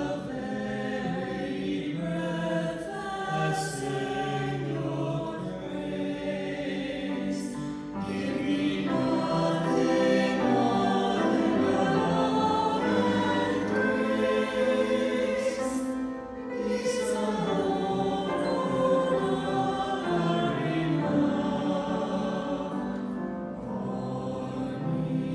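Cantors singing a hymn with grand piano accompaniment, the voices holding long notes.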